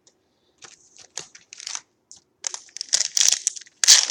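Foil trading-card pack wrapper being crinkled and crumpled by hand, in irregular bursts that grow denser and louder, the loudest just before the end.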